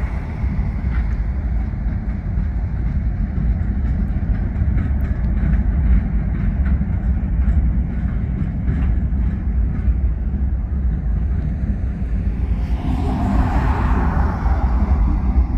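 Low, steady rumble of a consist of CN GE diesel locomotives moving slowly through the yard. About 13 seconds in, a pickup truck passes close by on the road, its tyre hiss swelling and fading.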